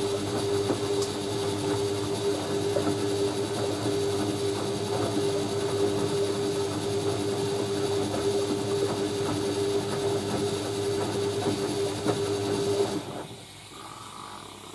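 Hoover A3060 Electronic 1100 washing machine running in its rinse: a steady hum with a rushing hiss over it, which cuts off suddenly about 13 seconds in.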